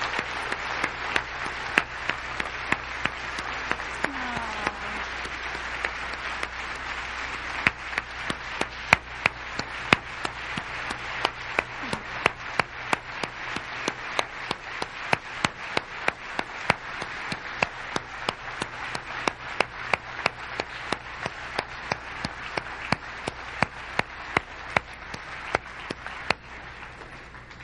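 Audience applauding at length, a dense patter of clapping with one person's sharp claps standing out at about two to three a second, and a brief shout or two in the first few seconds; the applause fades near the end.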